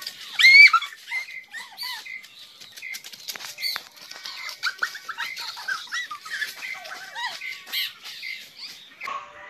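Small birds chirping and calling in short, scattered notes, with one louder call about half a second in.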